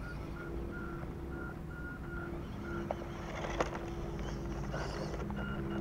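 Small electric motors of radio-controlled scale crawler trucks whining as they climb a dirt mound, with a short high beep repeating about twice a second and a sharp click about three and a half seconds in.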